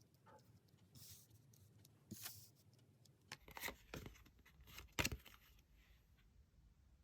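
Tarot cards being handled: soft, scattered paper swishes and rustles with a few light taps, the sharpest about five seconds in.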